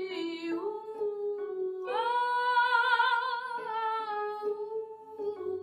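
A woman's trained classical singing voice vocalising a melodic sequence on open vowels, stepping between notes and then holding a long note with vibrato from about two seconds in. It is the descending part of a messa di voce vocalise, sung with a freely changed rhythm.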